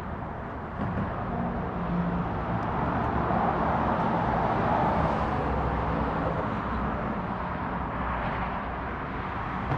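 A road vehicle passing by: tyre and engine noise that swells to its loudest about four to five seconds in, then slowly fades.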